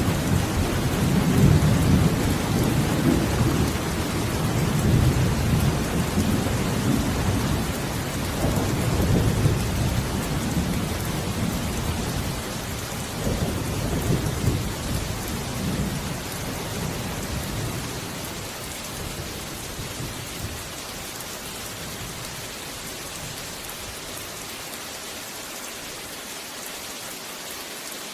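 Steady rain with thunder rumbling low and rolling through the first half, the rumble dying away after about eighteen seconds to leave only the rain.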